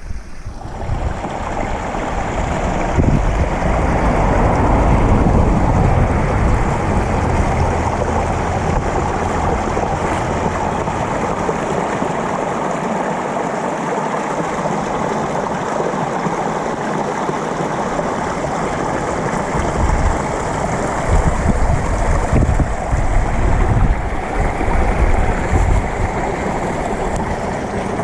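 Steady rush of running water from a mountain stream, with low, uneven rumbles of wind on the microphone.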